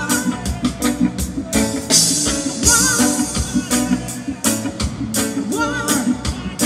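Live reggae band playing with a steady beat on drum kit, keyboard and guitar, a singer coming in with short sung phrases.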